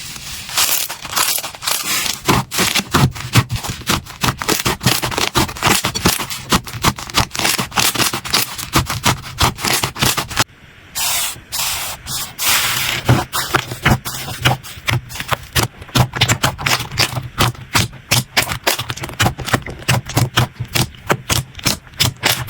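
Slime being squeezed and poked by hand, giving a dense run of sharp crackles and pops. The sound breaks off briefly about halfway through and starts again with a different slime.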